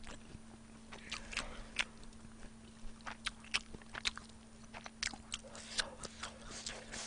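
A person chewing food close to a microphone: irregular wet, sharp mouth clicks, several a second, with no speech.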